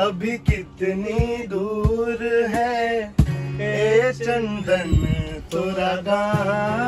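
A man singing a song in full voice to a strummed acoustic guitar, with sharp percussive hits among the sung phrases.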